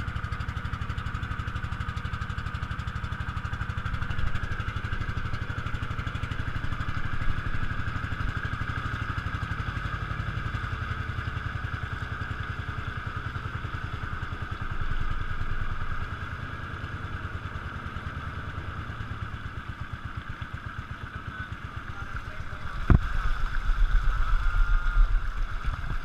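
Engine of a motorised outrigger boat (bangka) running steadily while the boat cruises. About 23 seconds in, a sudden loud low rumble of rushing water joins it, the wash splashing past the outrigger close by.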